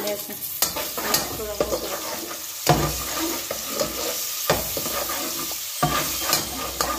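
Sliced onions sizzling in hot oil in an aluminium pot while a perforated metal skimmer stirs them, scraping the pot. The spoon knocks sharply against the metal about six times.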